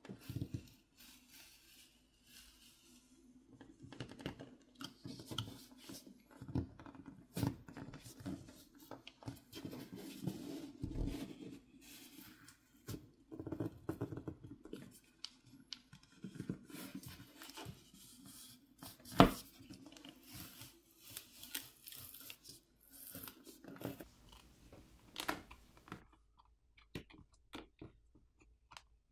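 Plastic back plate of a Xiaomi Poco F6 being pried off the phone with a pry tool, its heat-softened adhesive peeling away in irregular clicks, scrapes and tearing noises. One sharp snap about two-thirds of the way through.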